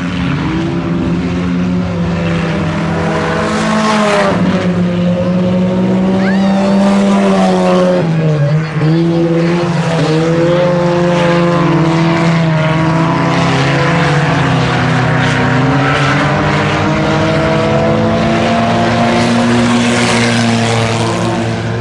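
IMCA Sport Compact race cars with four-cylinder engines running in a pack around a dirt oval. Several engines overlap, their pitch rising and falling as the cars lift for the turns and accelerate down the straights.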